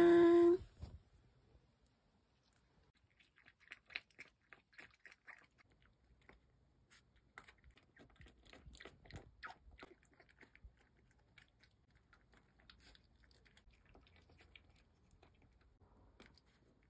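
A puppy eating dry kibble: faint, irregular crunching and chewing as it bites through the pieces, lasting until the bowl is empty.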